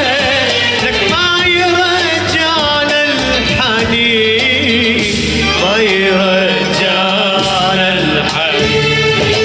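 Live Arabic music: a male singer sings a wavering, ornamented vocal line into a microphone over electronic keyboard accompaniment.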